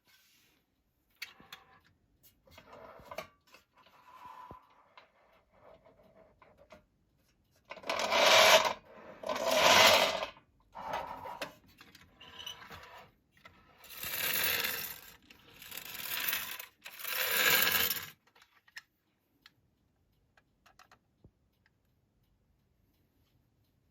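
Tin toy cars being handled: scattered light metallic clicks and scrapes, then five loud rasping noises, about a second each, one after another.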